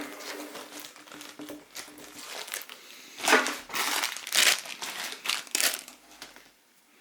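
Plastic packaging crinkling and rustling as it is handled. The loudest rustles come in the middle, and it dies away near the end.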